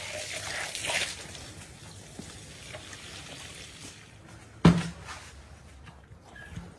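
Water from a garden hose pouring and splashing onto raw trotters in a metal bowl, louder in the first second and then settling to a softer trickle. There is one sharp knock a little over halfway through.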